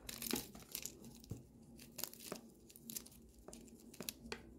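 Faint, irregular clicking of the plastic layers of a small GAN keychain 3x3 cube being turned by hand, a few clicks a second.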